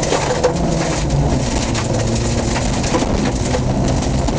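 Rally car's engine running hard, heard from inside the cabin, with irregular knocks and rattles as the car bounces over rough ground.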